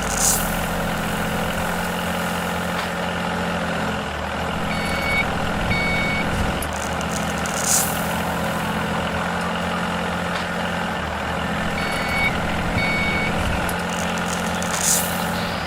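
Heavy construction-vehicle engine running steadily, with two pairs of short reversing beeps and three brief hisses like air-brake releases.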